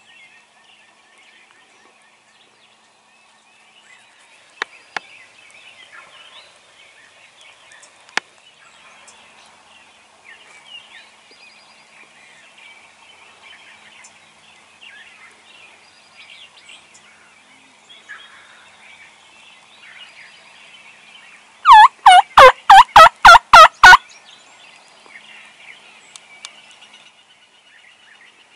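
Wild turkey gobbler gobbling once, very loud, about three-quarters of the way through: a quick rattling run of about nine falling notes. Faint songbird chatter underneath, and a few sharp clicks in the first third.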